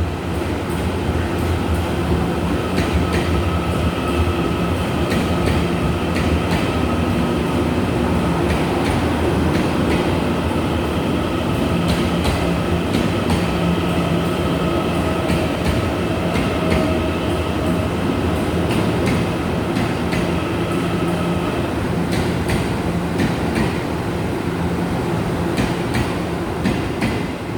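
Passenger train running on the rails: a steady running noise with a held motor hum and scattered clicks of the wheels over rail joints.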